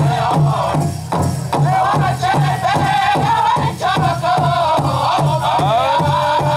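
Pow wow drum group singing an intertribal song: a steady, even beat on the big drum under high-pitched voices singing together.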